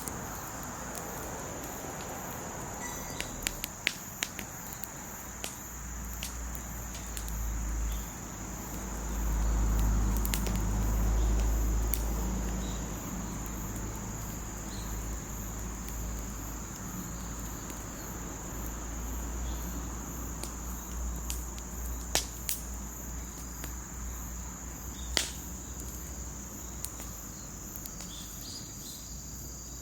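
Wood fire burning in a fire pit, with scattered sharp crackles and pops, over a steady high chirring of crickets. A low rumble swells for several seconds a quarter of the way in.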